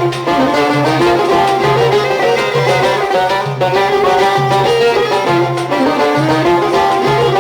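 Instrumental passage of Algerian chaabi music with no singing: a string ensemble, violin and banjo among it, plays the melody over a pulsing low accompaniment.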